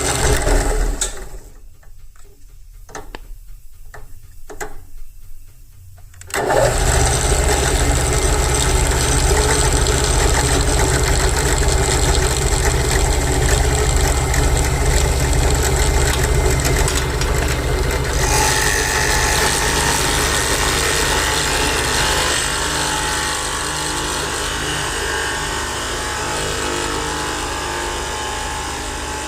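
An electric drill switches on about six seconds in and runs steadily, driving a nail clipper against wood; from about eighteen seconds a harsher, brighter grinding joins it. A few light clicks come before it starts.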